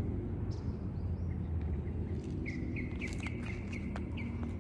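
A bird calling a quick series of short, high chirps from about halfway in, over a steady low background hum.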